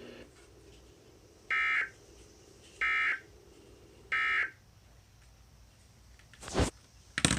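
Emergency Alert System end-of-message data bursts: three short buzzy digital squawks about a second and a quarter apart, marking the close of the severe thunderstorm warning. Two brief clicks follow near the end.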